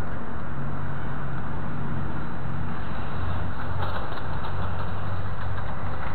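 Steady low engine rumble, with a constant noisy hiss over it.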